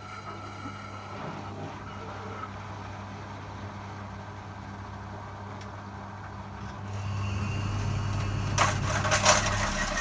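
Twenty-year-old Eumenia washing machine starting up: its belt-driven motor hums steadily and grows louder about seven seconds in. From about eight and a half seconds a loud metallic rattling sets in, like "metal pieces just moving around", which the owner takes for a drum bearing that has gone.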